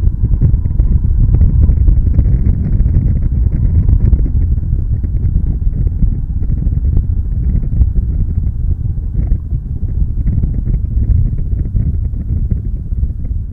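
ATV engines running: a loud, steady low rumble.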